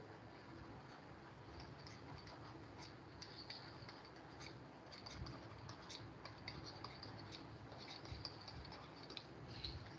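Faint scratching and irregular light tapping of a stylus on a pen tablet as a line of handwriting is written.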